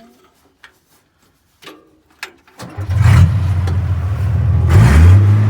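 A 30,000-pound excavator's diesel engine starting up, preceded by a few faint clicks. About two and a half seconds in it catches suddenly and runs loud and steady, with a swell near the end after which it settles to a steady, slightly different pitch.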